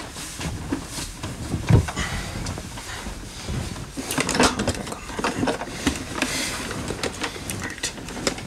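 Large plastic Nerf blaster being picked up and handled: a run of irregular plastic clunks, clicks and rattles, with a heavier thump about two seconds in.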